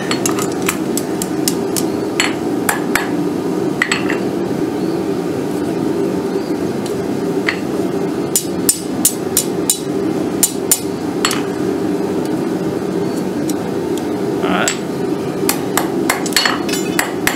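Hand hammer striking hot quarter-inch round steel on an NC Cavalry anvil, bending it around a 3/8-inch round bar to form an eye. The strikes come in irregular runs with short pauses, over a steady low hum.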